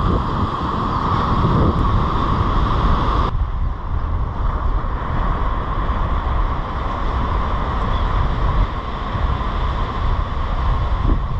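Wind buffeting the microphone over the steady wash of breaking surf. A little over three seconds in, the higher hiss drops off abruptly, leaving mostly the low wind rumble and surf.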